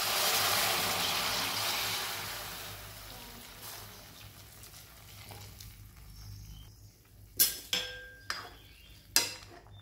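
Heated water poured into a hot metal pot of mutton cooking in its juices, sizzling and hissing loudest in the first couple of seconds and dying down. From about seven seconds in, a metal ladle clinks against the pot a few times as the curry is stirred.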